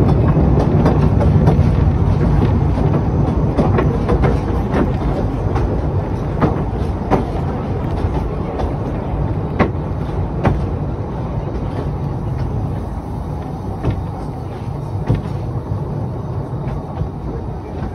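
Narrow-gauge train running on the Talyllyn Railway: a steady rumble with irregular sharp clicks of wheels over rail joints, easing slowly in loudness.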